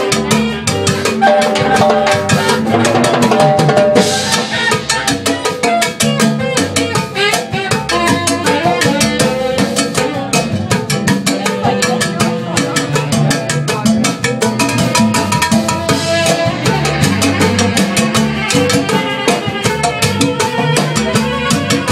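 Live band playing up-tempo Latin music, driven by drum kit and hand percussion, with a saxophone among the instruments.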